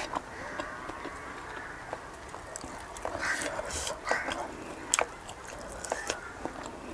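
A person eating close to the microphone: chewing and biting, with scattered sharp mouth clicks and smacks.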